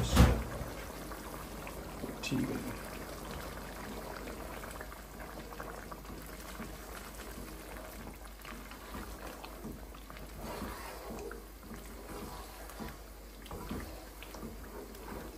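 Pot of lamb bubbling steadily on the stove with oil just added, the meat being left to cook until tender. A sharp knock right at the start and a smaller one about two seconds in.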